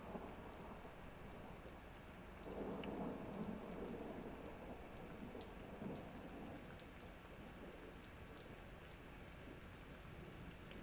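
Thunderstorm background recording: steady rain with scattered drop ticks, and a low rumble of thunder swelling about two and a half seconds in.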